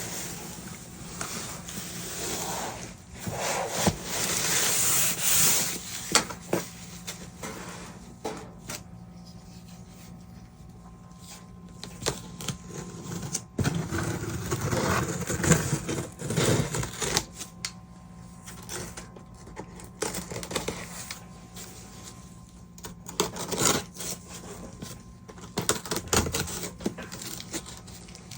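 Hands handling and opening packaging: irregular rustling, rubbing and scraping, with scattered short clicks and taps, loudest in a few stretches of handling.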